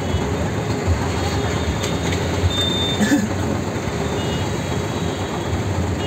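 Steady rumble of city road traffic (auto-rickshaws, motorbikes and cars), heard from inside a stationary vehicle. A short high beep sounds about two and a half seconds in.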